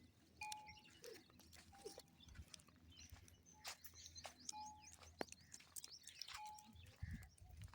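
Faint outdoor ambience around a goat herd: scattered clicks, repeated short ringing notes at a single pitch, and small bird chirps.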